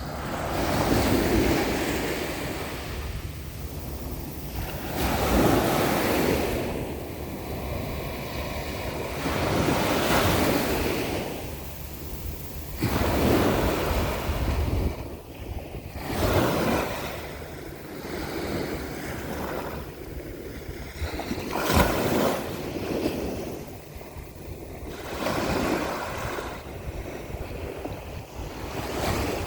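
Sea waves breaking and washing up the shore, swelling and falling away in repeated surges every few seconds, with wind buffeting the microphone. One sharper crash comes about two-thirds of the way through.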